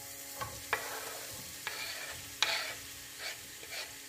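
Diced onion being scraped off a wooden chopping board into hot oil in a frying pan, sizzling. About six short scrapes of the board and onion sound over the sizzle.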